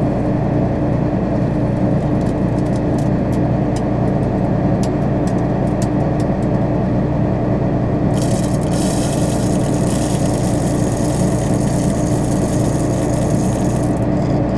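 John Deere 9500 combine running with a steady drone and a constant hum. Small clicks come in the first half, and a hiss joins about eight seconds in and stops about six seconds later.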